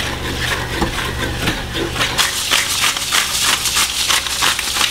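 Cream-and-drippings gravy sizzling in a cast-iron skillet while it is stirred, then a handheld spice grinder twisted over the pan: a fast run of gritty clicks, about six a second, from about two seconds in.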